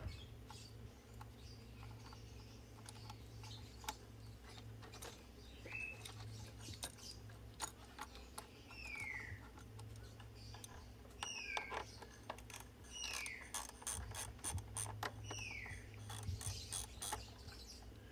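Irregular metallic clicks and ticks of hand tools working the car battery's terminal clamps and hold-down. A bird calls several times in the background with short falling whistles.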